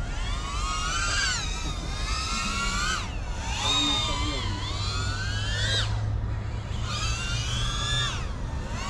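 FPV quadcopter's electric motors and propellers whining, the pitch rising and falling every second or two as the throttle is worked, with sharp drops about three seconds in and again near six seconds.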